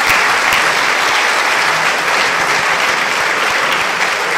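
Theatre audience applauding steadily: a dense, even clapping from many hands.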